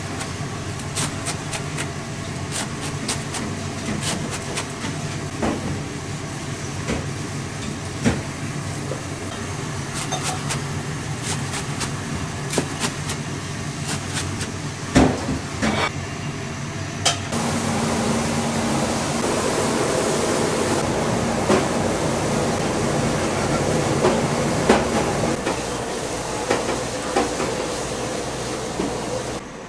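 Kitchen work: frequent clinks and knocks of utensils and dishes over a steady low hum. About halfway through, a louder, even rushing noise takes over.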